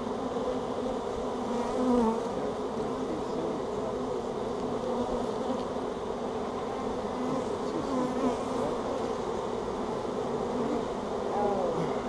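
Honey bee swarm buzzing close to the microphone: a dense, steady hum, with single bees' flight tones rising and falling as they pass near.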